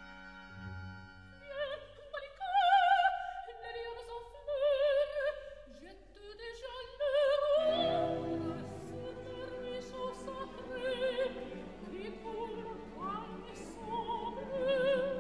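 Music: operatic singing, high sustained notes with wide vibrato, over an orchestral accompaniment that grows fuller about halfway through.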